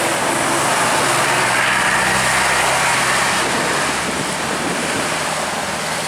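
Heavy road vehicle passing close by: engine and tyre noise build to a peak about two seconds in, then ease off.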